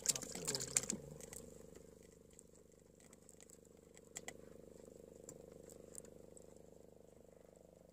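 Fishing boat's engine running steadily with a low hum, with a few faint clicks and knocks along the way. A voice is heard briefly at the start.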